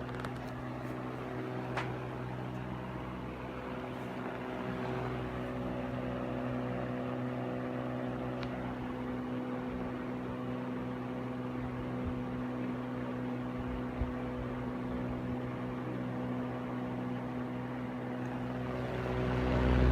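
Mitsubishi E-30S ventilation fan, fitted with a replacement VD-18Z4 motor, running steadily: a mains motor hum over the rush of moving air, growing louder near the end.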